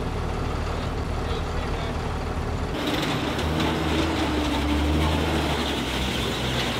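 Tracked all-terrain vehicle's diesel engine running as the vehicle drives up onto a flatbed trailer. About three seconds in the engine pulls harder and gets louder as it climbs onto the deck.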